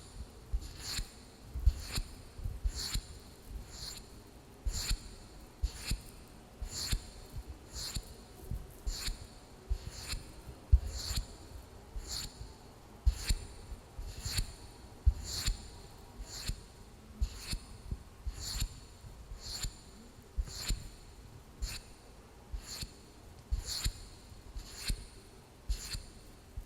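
Wooden lid being tapped with evenly spaced, light, sharp taps about once a second, each with a bright ring, over soft, irregular low knocks from handling.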